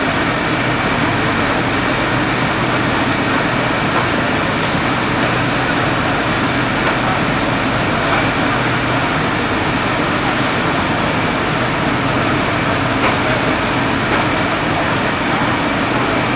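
Fire engines' diesel engines running with a steady low drone.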